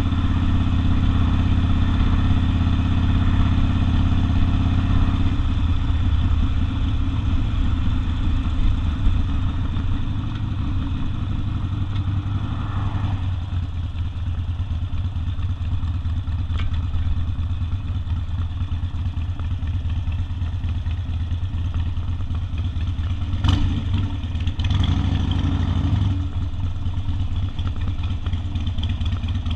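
Harley-Davidson Sportster's air-cooled V-twin with open exhaust, running under way. It pulls louder for about the first five seconds, then eases off to a lower, steadier run, with a brief rise again near the end.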